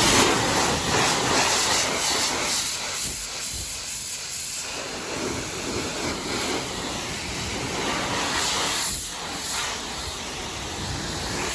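Self-serve car wash pressure wand spraying a high-pressure rinse onto a car: a steady, loud hiss of water spray, strongest in the first couple of seconds and easing a little after.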